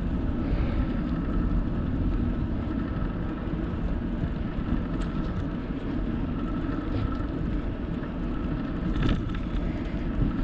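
Steady wind rumble on the microphone with tyre noise from a bicycle rolling along a paved trail, and a couple of faint clicks.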